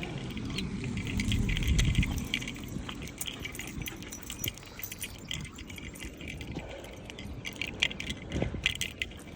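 Small metal pieces jingling again and again in time with walking, with a louder low rumble in the first two seconds.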